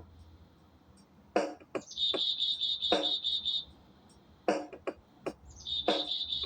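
Birds calling: short, harsh calls repeated several times, and twice a high, rapid trill of about six notes a second.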